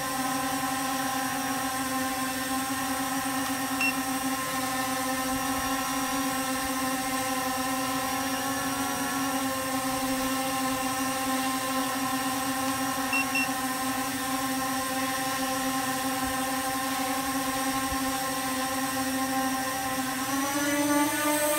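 C-Fly Faith2 Pro quadcopter drone hovering, its four motors and propellers making a steady, pitched buzzing whine. Near the end the pitch rises as the motors speed up.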